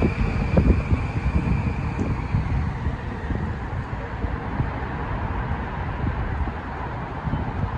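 Train rumbling past and moving away, a thin wheel squeal dying out in the first couple of seconds, with wind buffeting the microphone.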